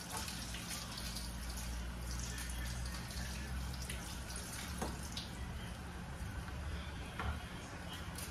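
Kitchen tap running into the sink while a bell pepper and a tomato are rinsed under the stream, with a couple of light knocks.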